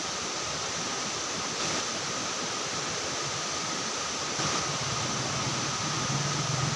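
Steady, even rushing noise with a faint high steady tone through it. A low hum joins about four and a half seconds in.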